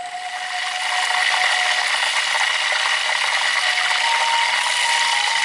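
Loud, steady, rasping buzz of insects that fades in over the first second, with a quiet music melody carrying on underneath.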